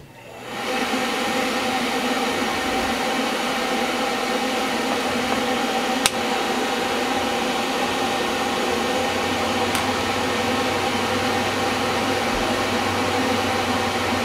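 Electric fan switched on, its motor coming up to speed within about a second and then running with a steady hum and rush of air. Two faint clicks come partway through.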